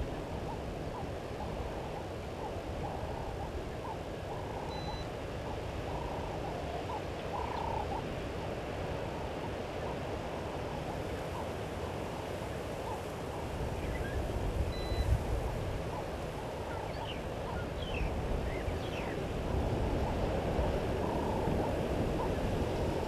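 Outdoor ambience of steady wind rumble on the microphone, with scattered faint bird calls: a few short notes early on and several quick chirps past the middle.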